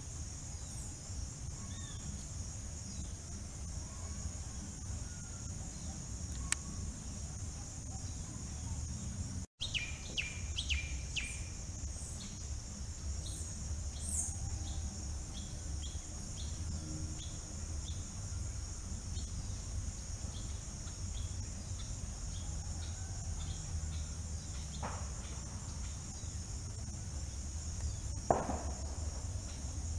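A steady, high-pitched trilling of insects runs throughout, over a low rumble of wind. Birds chirp and call in short notes, mostly from about a third of the way in. There are a couple of sharp clicks, the louder one near the end.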